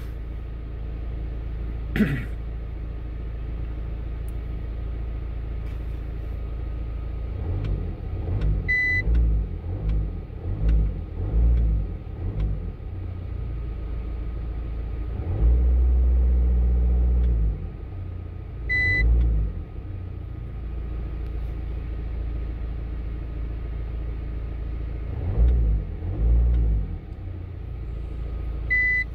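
Volkswagen Mk5's 1.9 TDI PD diesel engine idling, heard from inside the cabin, with a run of short revs a few seconds in and a longer held rev about halfway through, then more revs near the end. A short high beep sounds about every ten seconds.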